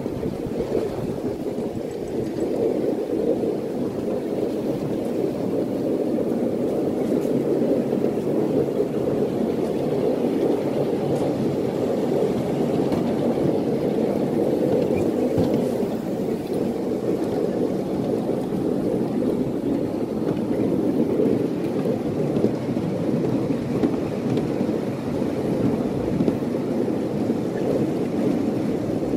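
Miniature railway train running along its track, a steady rumble of wheels on rail heard from a riding car.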